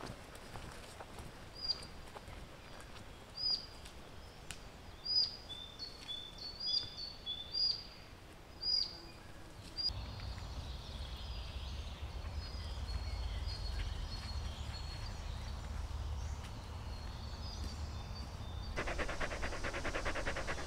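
Songbirds calling with a string of short, sharp high chirps. From about halfway a low steady rumble lies under fainter birdsong. Near the end a dog pants rapidly.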